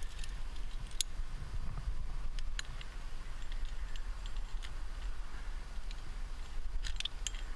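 Climbing gear clinking a few times, sharp clicks about a second in, again a little later, and a small cluster near the end, over a steady low rumble on the helmet camera's microphone.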